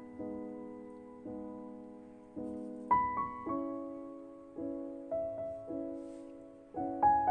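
Slow, gentle background piano music: chords struck about once a second, each left to ring and fade.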